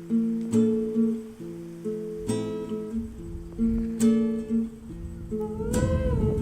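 Background music: an acoustic guitar strumming chords, about one strum every second or two, with a singing voice coming in near the end.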